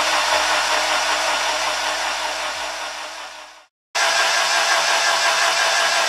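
Starter motor cranking a Honda K24 engine over without it firing, to build oil pressure: a steady whirring that fades and drops out a little before four seconds in, then comes back at full level.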